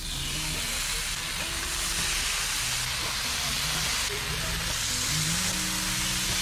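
Meat sizzling on a hot griddle, a loud steady hiss, with background music underneath.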